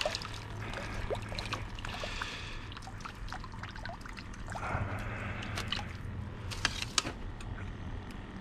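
Water trickling and dripping off a landing net and fish lifted from the water while the fish is handled, with scattered small clicks and knocks. Two sharper clicks come near the end, over a low steady hum.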